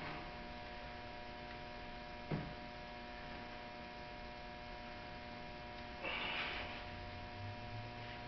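Steady electrical mains hum, with a single sharp click about two seconds in and a short scraping rustle about six seconds in as hands work at a car door trim piece held on with double-sided tape.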